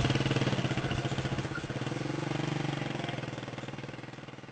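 The small engine of a homemade helicopter-shaped vehicle runs steadily with a rapid putter as the vehicle drives along. The note lifts slightly partway through, then fades away near the end.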